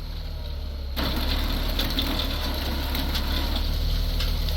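Farm tractor engine idling steadily, getting louder about a second in, with a few short metallic clicks over it.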